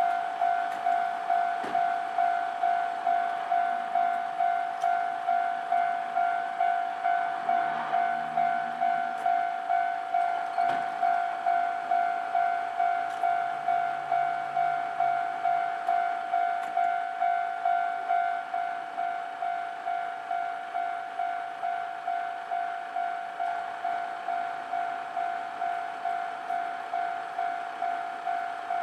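Japanese railway level-crossing warning bell ringing, an electronic clang repeating a little more than once a second. About two-thirds of the way through it turns quieter.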